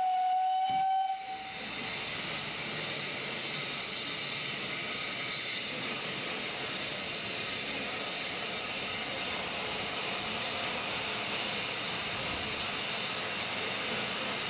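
Narrow gauge steam locomotive's whistle sounding one long steady note that stops about a second in, followed by a steady hiss of escaping steam.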